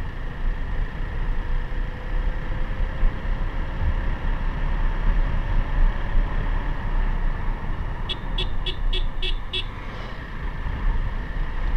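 Steady low rumble of a motorcycle ride on the road. About eight seconds in, a horn gives a quick run of six short beeps.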